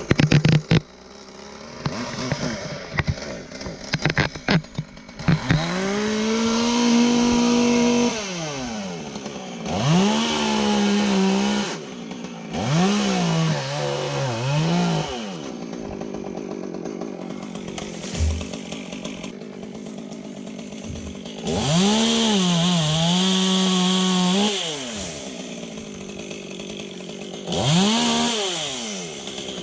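Sharp clicks and knocks for the first few seconds, then a chainsaw revving up in about five runs, its pitch sagging in the middle of several runs as it cuts into wood, and dropping back to idle in between.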